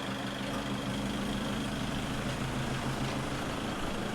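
A vehicle's engine running steadily with an even low hum.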